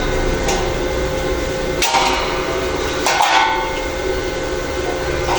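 Hammer blows: four separate strikes, two of them in quick succession about three seconds in, each with a short ring after it.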